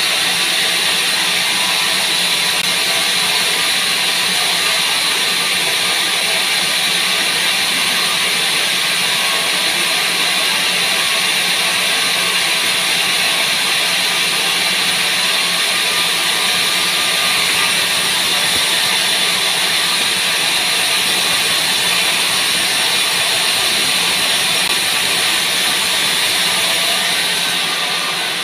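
Large vertical wood bandsaw running steadily, its motor and moving blade giving an even hiss over a low hum.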